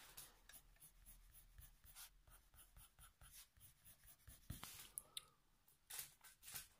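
Coloured pencil (Faber-Castell Polychromos) hatching on paper: faint, quick, repeated scratching strokes, with a few louder clicks in the second half.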